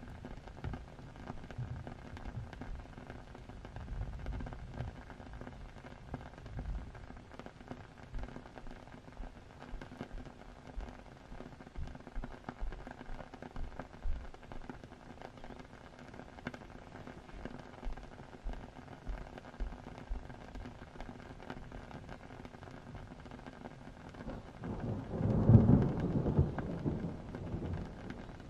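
Steady rain with low rolls of thunder, and one louder thunder rumble swelling and fading near the end.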